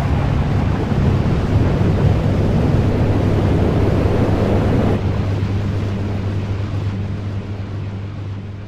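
Dark ambient noise intro of a metal EP: a dense rushing wash over a steady low hum, thinning abruptly about five seconds in and then fading out.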